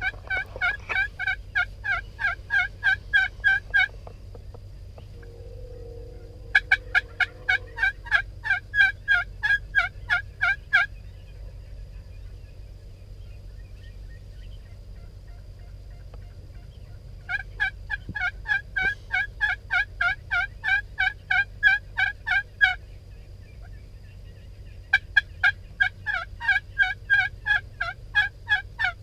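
Turkey yelping in four long runs of evenly spaced notes, about three to four a second, each run lasting about four seconds. A short, low, held call comes between the first two runs.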